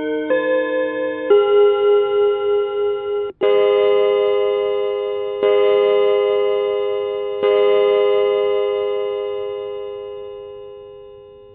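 Seiko RQ309A wall clock's electronic hourly chime: the last two notes of its melody, then three hour strikes about two seconds apart, the last one dying away slowly.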